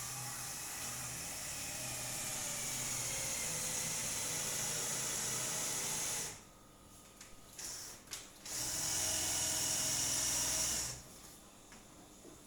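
A handheld power tool running, the kind used in cabinet and wardrobe work. It runs steadily for about six seconds, stops, gives two short bursts, then runs again for about two seconds and stops.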